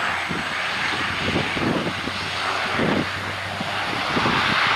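Turboprop engines and propellers of a Bombardier Dash 8 Q400 airliner running as it rolls along the ground. A steady rushing roar sits over a steady low propeller hum and grows louder toward the end.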